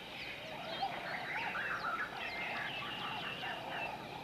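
A chorus of tropical birds chirping and calling over one another, with many short, quick chirps and some lower calls mixed in.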